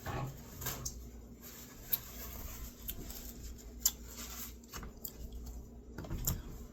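A few scattered light clicks and taps of a fork against a plate while eating, over faint room hum.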